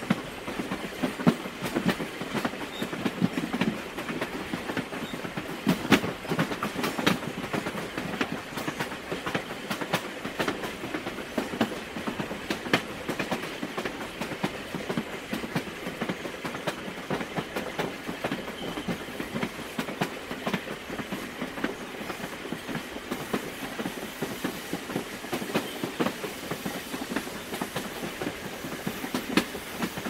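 Steam train travelling at medium speed: a steady running noise, with the wheels clicking sharply and irregularly over the rail joints throughout.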